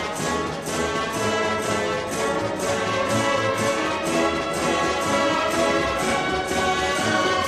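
Orchestral background music with brass, held chords over a steady beat of about three pulses a second.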